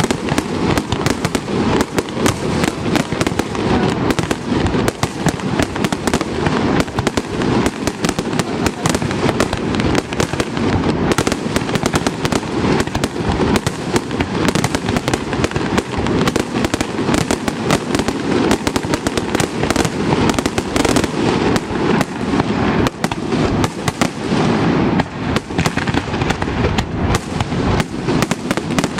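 Pirotecnia Aitana aerial firework shells bursting in a dense, unbroken barrage, bangs and crackle following one another many times a second.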